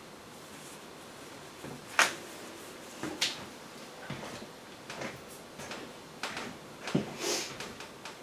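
Irregular light clicks and knocks of small tools and parts being handled, the sharpest about two seconds in, with a short scraping rustle about seven seconds in.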